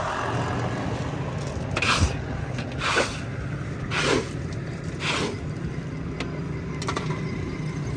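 Four short swishing scrapes, evenly about a second apart, over a steady low rumble of traffic.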